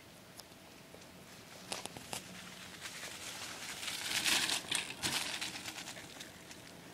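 Rustling, crinkling noise with a few sharp clicks about two seconds in; the rustle swells in the middle and then fades.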